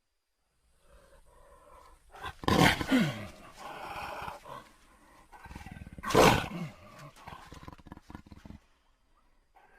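Velociraptor sound effect: a dinosaur creature vocalization with two loud roaring calls, about two and a half and six seconds in, the first falling in pitch, and quieter calls between and after them.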